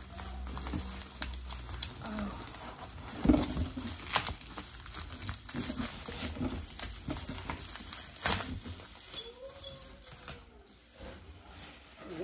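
Bubble wrap and plastic packaging crinkling and crackling as it is handled and pulled off a glass, with sharp crackles loudest about three, four and eight seconds in.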